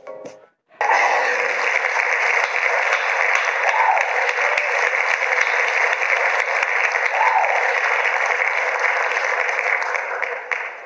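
A crowd applauding: loud, dense, steady clapping that starts about a second in and fades out near the end.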